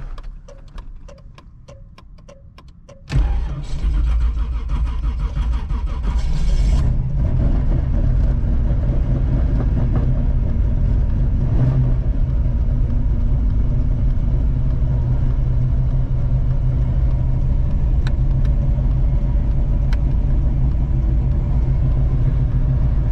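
Carbureted engine of a 1985 Oldsmobile Cutlass Supreme cranking for about three seconds, then firing and running, higher for a few seconds before settling to a steady cold idle on its newly fitted carburetor.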